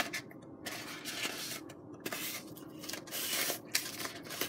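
Hands rubbing and shifting against foamboard: three or four short, scratchy brushing rubs, with a few light clicks in between.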